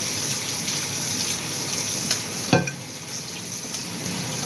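Kitchen tap running steadily, water splashing onto a plate rinsed under the stream, with a single knock about halfway through.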